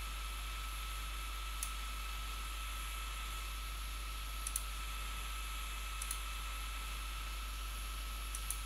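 Computer mouse button clicks, a single click and then three quick pairs a second or two apart, over steady recording hiss with a faint high whine.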